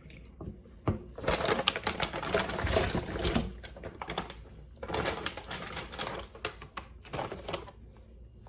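Dense crackling and clicking of plastic packaging being opened and handled to get at the shrimp, in three bursts, the longest from about one to three and a half seconds in.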